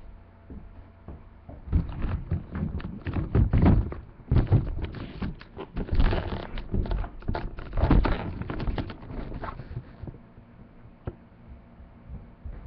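A quick, uneven series of knocks and thumps, starting about two seconds in and dying away near ten seconds.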